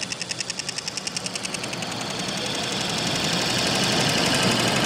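Sun Special SL-713 industrial sewing machine stitching a zipper onto fabric. It starts at about ten stitches a second, then speeds up into a continuous run that grows louder.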